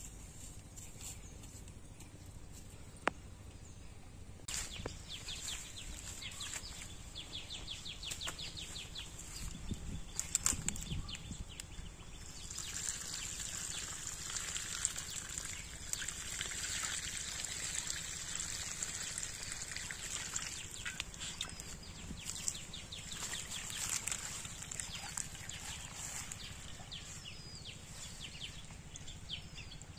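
Water pouring and splashing out of a clay pot onto grass, a steady wash that starts about twelve seconds in and runs for several seconds. Rapid ticking trills come and go in the background.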